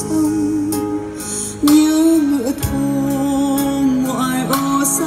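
Vietnamese pop ballad from a CD played through a Denon M39 mini hi-fi system and its SC-M39 bookshelf speakers: a passage without lyrics, a melody line with vibrato over held accompaniment.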